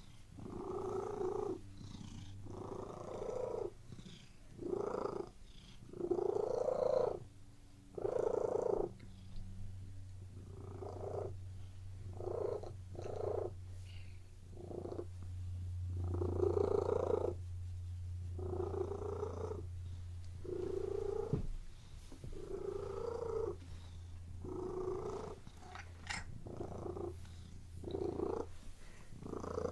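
Domestic cat purring steadily, a low continuous rumble that swells with each breath in and out, roughly every one to two seconds.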